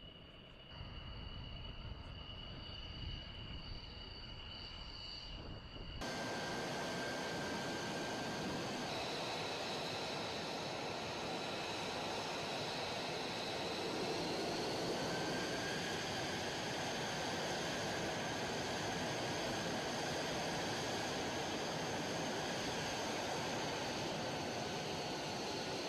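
F-35's Pratt & Whitney F135 turbofan running at taxi power: a steady jet rush with a high, constant whine. It comes in abruptly about six seconds in, after a quieter low rumble with faint steady tones.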